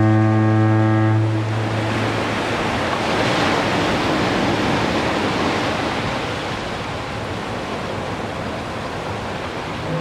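A deep foghorn blast, already sounding, cuts off about a second and a half in, its lowest note trailing on briefly. Ocean waves break and wash up a sandy beach for the rest of the time.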